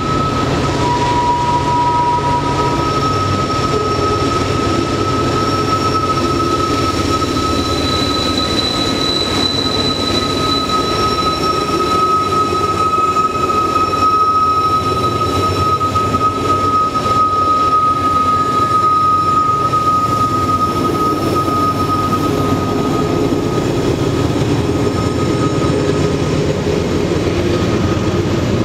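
Freight train with diesel locomotives moving away around a curve: a steady rumble of engines and wheels, with a long high squeal from the wheels on the curve that holds one pitch and stops about 22 seconds in, and a few shorter, higher squeals.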